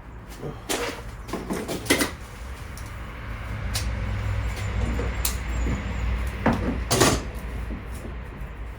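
Scattered clicks and knocks from handling a tin of worktop oil and a foam brush on a wooden worktop, about seven in all, two of them louder, about 2 and 7 seconds in. A low rumble swells underneath through the middle of the stretch.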